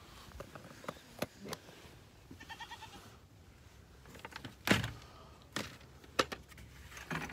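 A goat bleats once, briefly, in a quick wavering call about two and a half seconds in. Scattered sharp clicks and knocks sound around it, the loudest a sharp thump near the five-second mark.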